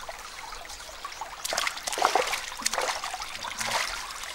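A shallow stream trickling steadily, with a run of splashes from about a second and a half in, loudest near two seconds, as someone wades into the water and reaches into it.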